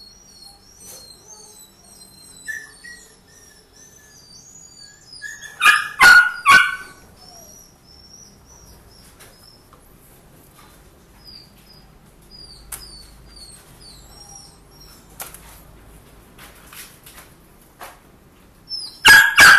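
A dog barks three times in quick succession about six seconds in, and twice more near the end, over the steady chirping of small birds.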